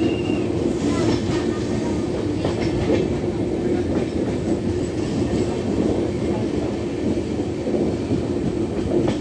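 Express passenger train running on the rails, heard from inside a coach: a steady rumble of the wheels and coach, with a few faint clicks.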